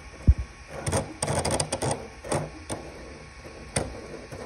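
Polar 3D printer converted from an Ender 2 Pro, its spinning bed swung violently back and forth: a low thump, then irregular bursts of rattling and grinding. The sound comes from the sudden accelerations near the centre of the print, which make the belt grind.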